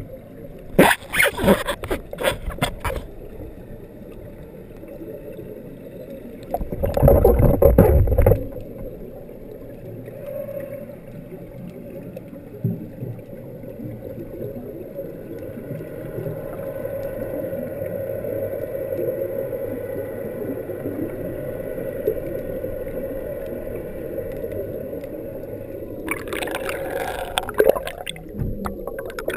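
Muffled underwater sound picked up through a GoPro dive housing just below the surface. A steady low hum runs throughout, with bursts of splashing and bubbles about a second in, a louder rumbling burst around seven seconds in, and more splashing near the end.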